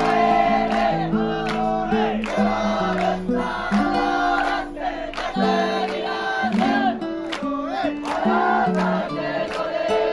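Music: a sung melody with wavering held notes over a plucked-string accompaniment moving from note to note.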